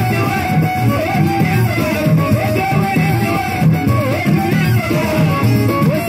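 Live Moroccan chaabi music: a violin held upright on the knee carries a sliding melody over a steady drum rhythm.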